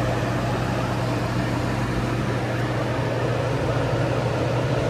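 Large drum fan running steadily: an even rush of air over a low, constant motor hum.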